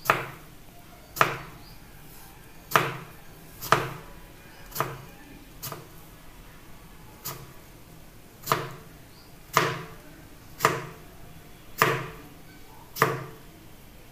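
Chef's knife slicing peeled ash gourd into thin strips and striking a plastic cutting board: about a dozen sharp cuts, roughly one a second.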